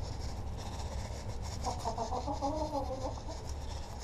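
Chickens clucking for a second or two about midway, over a light ticking and rattling of cracked corn being scooped and scattered on the coop floor.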